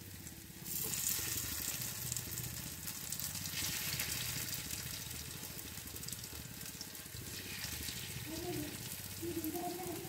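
Hot oil sizzling in a flat pan as pieces of besan-and-semolina snack are laid in to shallow-fry, the sizzle growing louder about a second in.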